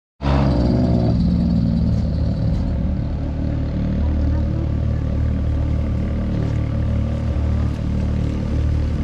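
Off-road vehicle engine running steadily at low revs, a continuous low rumble, with a brief higher engine note in the first second.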